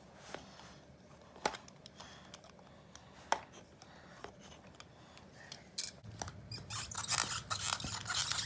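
Small plastic Play-Doh toy pieces being handled: scattered light clicks and taps, then from about six seconds in a louder, busier stretch of rustling and clattering.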